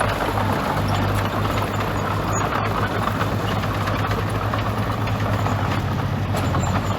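Heavy diesel engine of earthmoving machinery running steadily with an even low hum.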